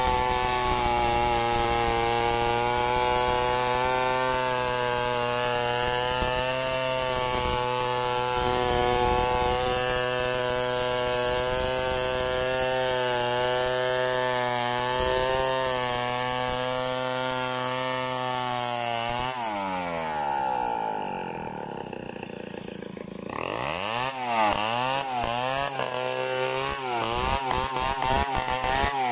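Chainsaw running at full throttle, ripping lengthwise through a log to mill boards freehand. About nineteen seconds in the revs drop to idle, then are blipped up and down a few times before the saw goes back into the cut at high revs.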